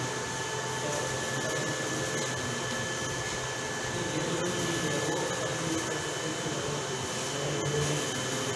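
Gantry concrete 3D printer running: a steady machine whir with a constant high whine held over it.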